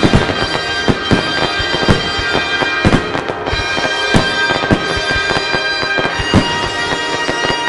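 Fireworks bursting in a rapid, irregular barrage of sharp bangs, several a second, over show music with long held notes.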